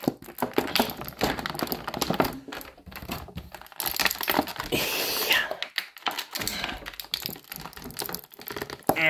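Thin clear plastic blister tray crinkling and crackling in the hands, with many irregular clicks and snaps as an action figure is worked out of it. It grows louder and scratchier about four seconds in.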